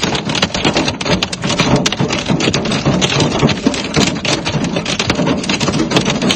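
Hail and heavy rain pelting down: a dense, steady hiss packed with many sharp clicks of hailstones striking.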